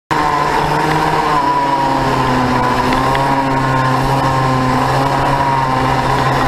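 Racing go-kart's 100cc two-stroke engine running hard on track, heard from the kart itself, its pitch holding fairly steady with slight rises and dips. The sound cuts in suddenly right at the start.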